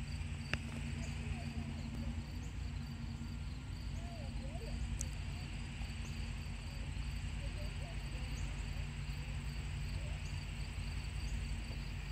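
Outdoor ambience: insects trilling steadily in the grass over a steady low rumble and hum, with one short click about half a second in.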